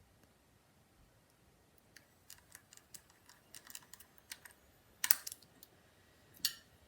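An irregular run of small, sharp clicks of hard plastic parts, then two louder clacks about five and six and a half seconds in.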